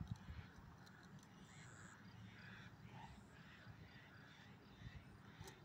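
Near silence: faint outdoor ambience with a low rumble of wind on the microphone and a run of faint, evenly spaced cawing calls in the distance.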